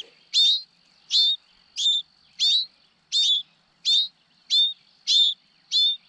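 Nestling songbirds in the nest giving begging calls: a short, sharp, high chirp repeated evenly about every 0.7 seconds, nine times. These are hungry young calling for food.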